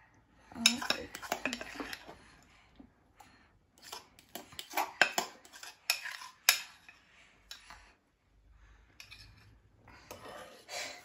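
A spoon scraping and clinking against a glass bowl as chocolate mousse is spooned out into stemmed glasses. The sharp clinks and scrapes come in three clusters with short pauses between them.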